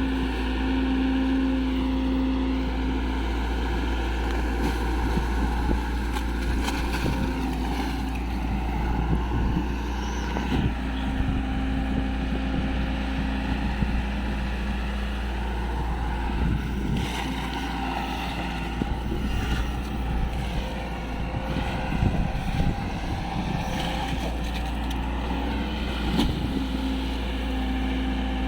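Heavy excavator's diesel engine running continuously, its pitch rising and falling as the hydraulics are worked under changing load.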